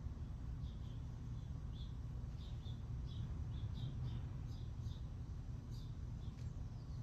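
Small birds chirping faintly and irregularly over a steady low background rumble.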